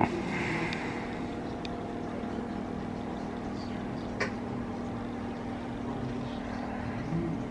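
A steady low drone of several constant pitches, with a couple of faint clicks, one at the start and one about four seconds in.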